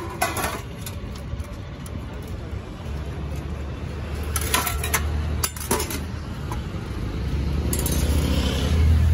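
Steel ladle clinking against stainless-steel serving pots and lids as rice and curry are dished out, a few sharp clinks now and then. A low engine hum comes in about three seconds in and grows louder near the end.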